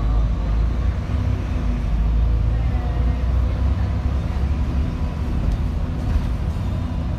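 Double-decker bus driving in city traffic, heard from the upper deck: a steady low engine and road rumble.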